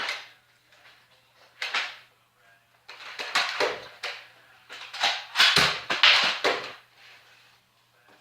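Irregular bursts of scuffing, clattering and knocking, the loudest in a cluster about five to six and a half seconds in.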